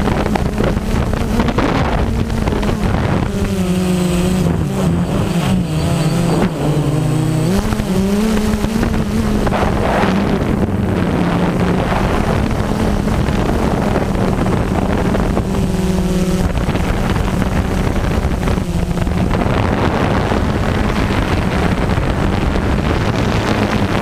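Camera drone's propellers humming steadily, the pitch dipping and wavering several times as it manoeuvres, with wind rushing over the microphone.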